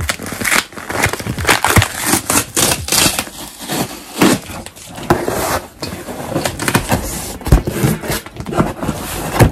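Cardboard shipping box being opened by hand: packing tape cut and torn off the top, then the cardboard flaps pulled open, in a run of irregular scraping, crinkling and tearing noises.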